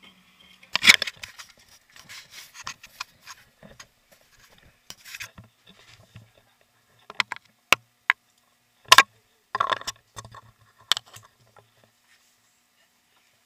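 Handling noise from an action camera being picked up and moved: a scatter of sharp knocks and clicks with rubbing and scraping in between, the loudest knock about a second in.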